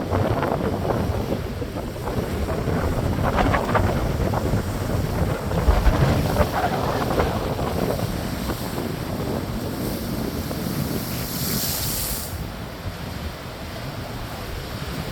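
Strong wind buffeting the microphone over breaking ocean surf, surging louder in the first several seconds, with a brief high hiss of washing water or spray about eleven seconds in.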